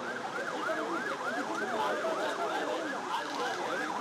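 Emergency vehicle sirens in a fast yelp, each sweep rising and falling about three times a second, with more than one siren overlapping.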